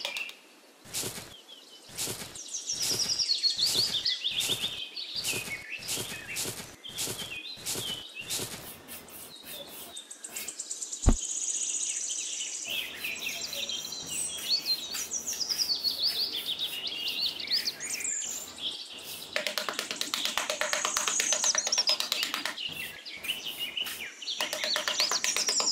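Birds chirping throughout, with a run of short scraping strokes, about two a second, in the first third from a small metal trowel digging in sand.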